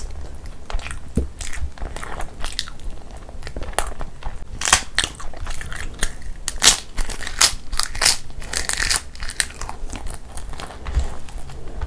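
Close-miked eating sounds: chewing a hand-fed mouthful of khichdi, then biting into a crisp papad, with a dense run of sharp crunches from about four to nine seconds in.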